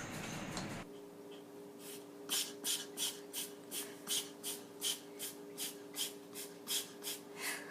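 An animal sniffing in quick, evenly spaced breathy puffs, about three a second, starting a couple of seconds in.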